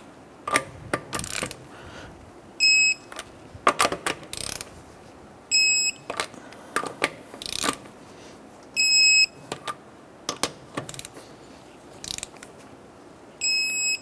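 Electronic torque wrench beeping four times, a short steady high beep every few seconds, each one signalling that a lug nut has reached its 100 ft-lb target torque. Between the beeps come ratchet clicks and knocks as the socket is moved to the next nut.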